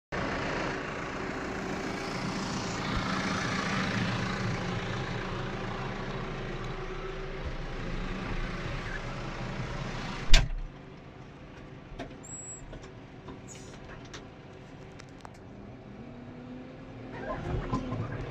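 New Holland T5.95 tractor engine running steadily, loud through the open cab door. About ten seconds in, a single sharp bang as the cab door is pulled shut, after which the engine is muffled and quieter inside the closed cab.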